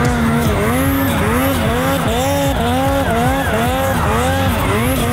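Snowmobile engine revving up and falling back over and over, about twice a second, as the sled is ridden on edge through deep powder.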